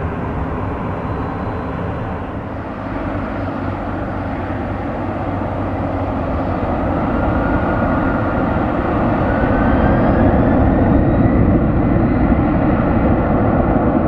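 Jet engine noise from a Boeing 767-300F freighter's GE CF6-80C2 turbofans as it rolls along on the ground: a steady rumble and hiss that grows louder about halfway through, with a whine rising in pitch.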